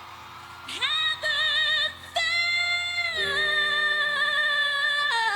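A woman singing long held notes, with vibrato and slides between notes, over a sustained keyboard accompaniment.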